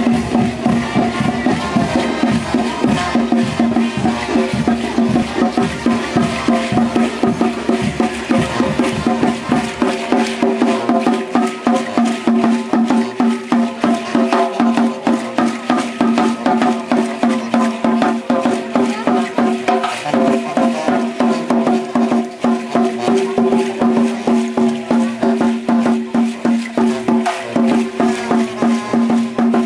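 Percussion music played for a troupe of feathered dancers: drums beaten in a fast, steady beat with sharp clacking strokes, over a steady held tone. The deepest part of the drum sound drops away about a third of the way through.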